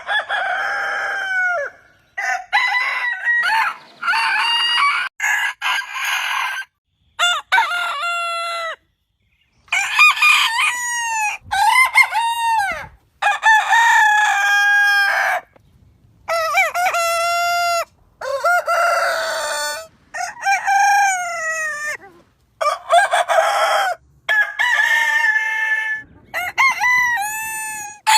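Rooster crows, one after another, about a dozen in a row with abrupt cuts to silence between them, and some clucking mixed in.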